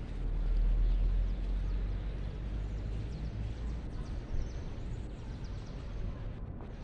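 Outdoor ambience: wind rumbling low and unevenly on the microphone, strongest in the first second or so, with a few faint high bird chirps in the middle.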